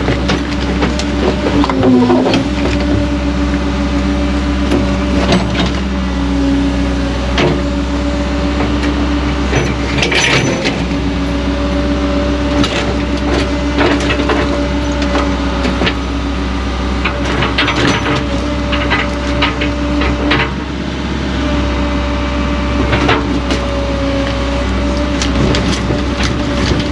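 Diesel engine of a digging machine running steadily under load, its pitch dipping briefly about two seconds in, with scattered knocks and scrapes.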